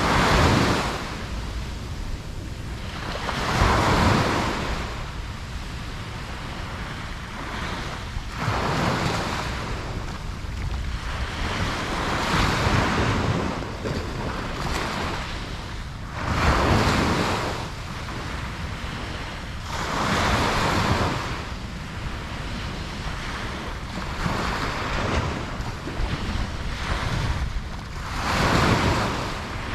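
Ocean waves breaking on a beach, one surge of surf every three to five seconds over a constant wash, with some wind noise on the microphone.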